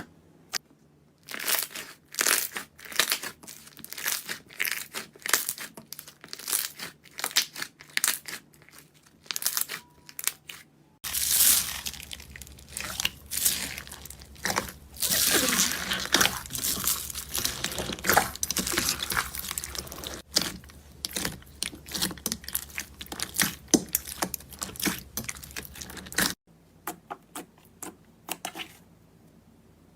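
Slime being squished and worked by hand, making dense runs of sticky crackling and popping clicks. The crackling comes in bursts, with a denser, louder stretch through the middle.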